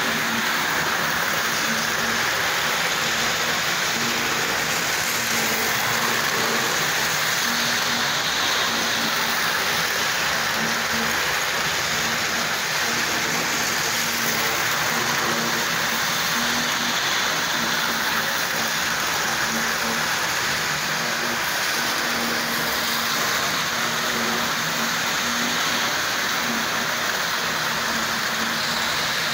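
Two vintage Tri-ang model trains running on the layout's track: a steady rattling whir of wheels and small electric motors, with a faint hum that comes and goes.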